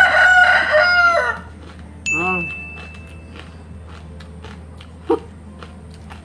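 A rooster crowing: one long crow that ends about a second and a half in. About two seconds in, a short high steady electronic tone sounds for about a second.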